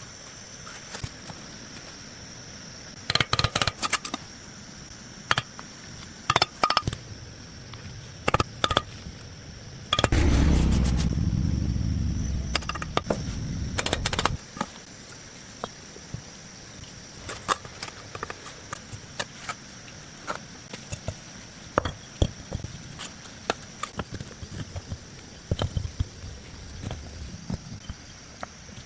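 Irregular sharp knocks and clinks in short clusters, with a louder rumbling, scraping sound lasting about four seconds near the middle.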